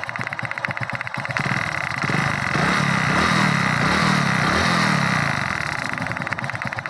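Hero Splendor Pro single-cylinder four-stroke engine idling with a fast, even ticking clatter. About a second and a half in it is revved, and the revs rise and fall a few times before it drops back to idle near the end. The clatter comes from a loose plug adapter on the engine and sounds like a loose magneto or cylinder-head bolt.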